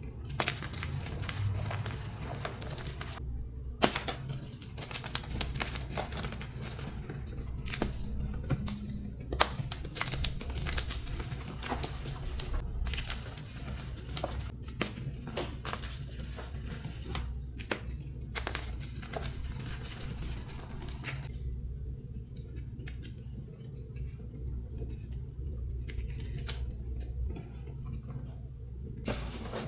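Dyed and pasted gym chalk blocks being crushed: dry crunching and crackling made of many small sharp snaps. The snaps grow sparser and quieter for the last several seconds.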